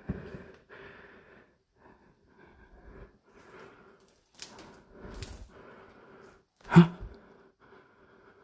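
A man breathing heavily through a series of soft breaths, with one sudden short, louder vocal sound about seven seconds in.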